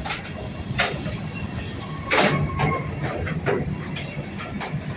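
Empty gondola cars of a work train rolling past: a steady low rumble of wheels on rail with irregular metallic knocks and clanks, the loudest about two seconds in.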